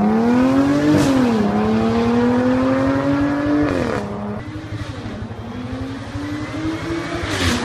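Audi S5 8T's supercharged 3.0 TFSI V6 with a valved Fi exhaust, accelerating hard through the gears. The revs climb, drop at an upshift about a second in, climb again, drop at another upshift about four seconds in, then climb once more.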